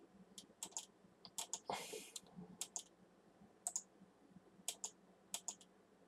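Faint, irregular clicks of computer keys and mouse buttons, about fifteen separate clicks, with a brief soft hiss about two seconds in.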